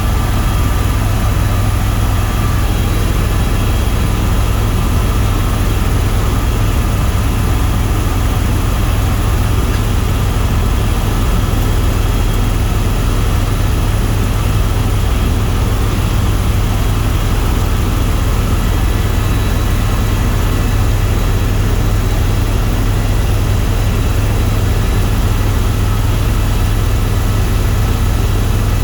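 Tour helicopter in steady flight: a constant low rotor drone with the turbine's steady whine above it, unchanging in level.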